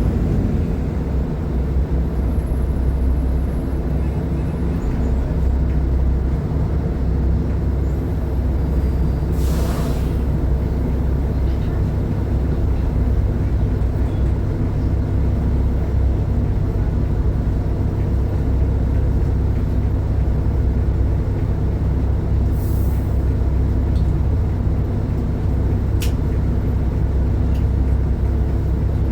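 Diesel engine of a Mercedes-Benz O500UDA superarticulated bus running at a steady speed. Two short hisses of released air cut in, about ten seconds in and again near the end, and there is a sharp click shortly after the second.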